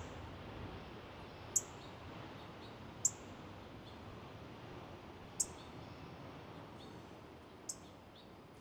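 A wild songbird giving four short, high call notes, spaced about two seconds apart, over a steady outdoor background hiss.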